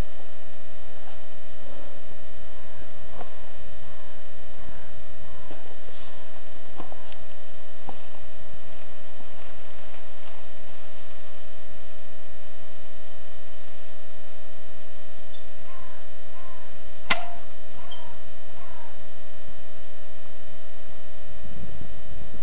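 A steady electrical hum with a fixed pitch that never changes level, with a few faint clicks and short chirps now and then, the clearest click about 17 seconds in.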